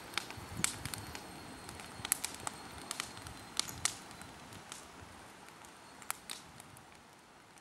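Wood fire crackling: sharp, irregular pops over a soft hiss, thinning out toward the end.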